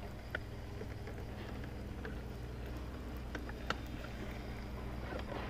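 A boat's motor humming steadily at a low pitch, with a few short, light clicks.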